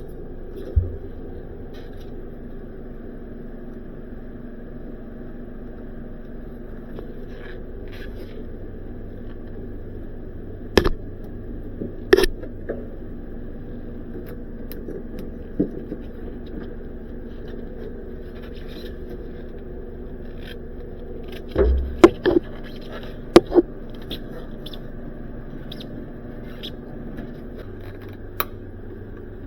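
A steady mechanical hum with sharp clicks and knocks scattered over it, several of them close together about twenty-two seconds in.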